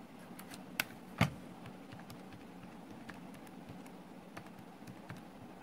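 Casio fx-991ES Plus scientific calculator set down on the paper with a knock about a second in, then its keys pressed in a run of small, irregular clicks as a subtraction is typed in.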